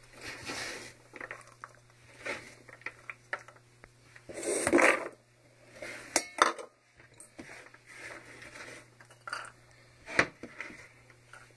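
Kitchen prep clatter: diced carrots handled with plastic measuring cups and tipped into a stainless steel mixing bowl, with light knocks and scrapes on a plastic cutting board. The loudest moment is a brief rush of pieces landing in the bowl about halfway through, followed later by two sharp knocks.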